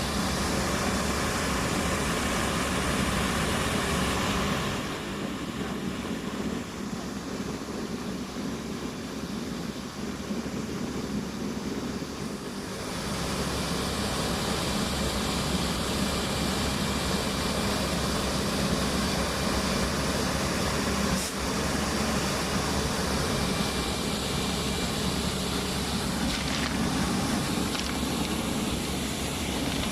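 Vacuum excavator running: a steady mechanical hiss and hum from the engine and suction, which drops quieter for several seconds about a sixth of the way in, then comes back to full level.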